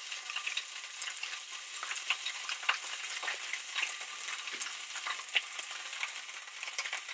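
Tempeh bacon strips and a slice of vegan cheese sizzling in oil on a hot electric griddle: a steady hiss scattered with many small pops and crackles.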